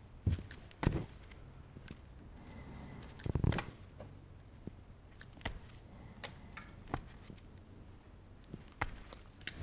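Side cutters snipping and clicking as they strip insulation off thin automotive wire: irregular sharp clicks with some handling rustle, the loudest cluster about three and a half seconds in.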